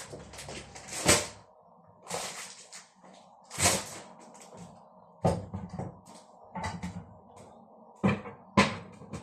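Kitchen cupboard being handled: a series of about seven short knocks and clatters, spread unevenly, with rustling between them.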